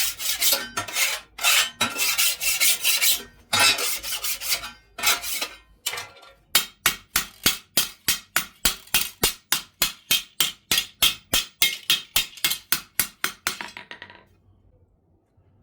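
Hand file rasping across the steel of a hand-forged sickle, taking off excess metal. The strokes are uneven at first, then settle into a quick, even rhythm of about four strokes a second, and stop about fourteen seconds in.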